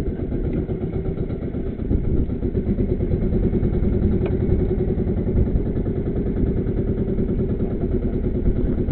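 A small boat engine running steadily at idle, an even, fast putter.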